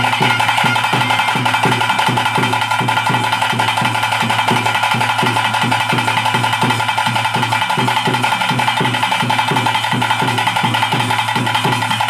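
Ritual drum music for a Tulu bhuta kola: a cylindrical drum beaten in a fast, even rhythm over a steady high drone.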